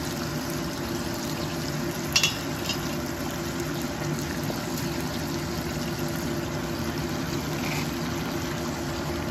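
Duck broth simmering and bubbling in a wok over a steady low hum. There is a short sharp clatter about two seconds in as ingredients are dropped into the pan.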